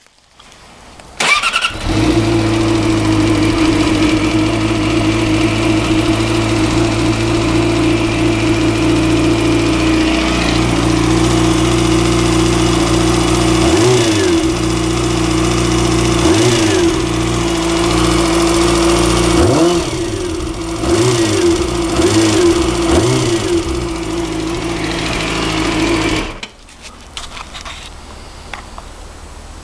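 Car engine starting up about a second in and running with a rattling noise whose cause is unknown, its speed briefly rising and falling several times in the second half, then shutting off near the end.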